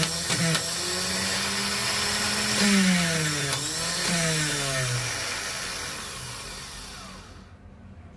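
Freshly repaired auto-rickshaw starter motor (from an Atul tempo with a Greaves engine) spinning freely off a battery on the bench, a steady electric-motor whine that spins well. Its pitch dips twice, then it winds down and fades out near the end.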